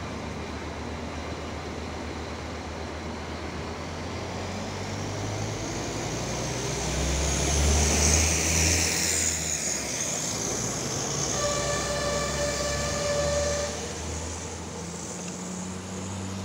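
SA139 diesel multiple unit approaching and passing, its engine humming and the passing noise building to a peak about halfway through. Shortly after the peak it gives one steady horn blast of about two seconds, the RP1 warning signal.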